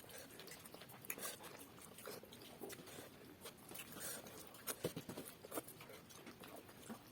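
Faint eating sounds: chewing and soft mouth smacks and clicks, scattered irregularly, as rice and spinach are eaten.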